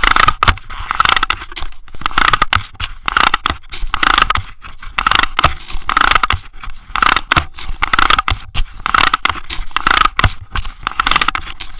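Handling noise on the camera: scraping and rubbing against the housing and microphone as it is carried and handled. The irregular scratchy rustling is dotted with sharp clicks and comes in bursts about once a second.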